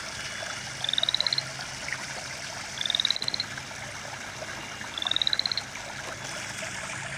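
A frog calling: three short pulsed trills that rise slightly in pitch, about two seconds apart, over a steady background hiss.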